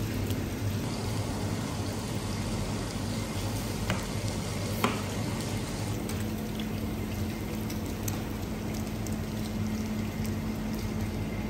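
Chunks of meat frying in bubbling oil in a large aluminium stockpot, a steady sizzle over a low hum. A single sharp knock sounds about five seconds in.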